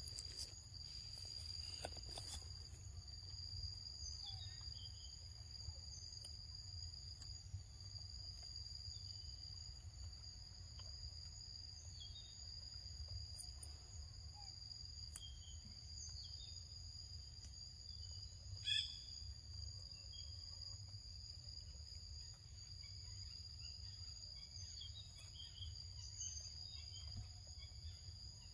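Steady high-pitched drone of insects, in several even pitches, over a low rumble. Now and then there are faint clicks, and one short sharp sound comes about two-thirds of the way through.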